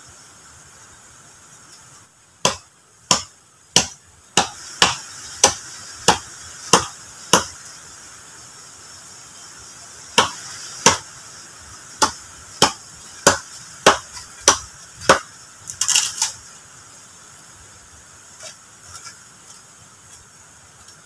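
Repeated sharp strikes of a tool on wood, a little under two a second, in two runs of eight or nine blows with a pause between, then a quick cluster of smaller knocks near the end.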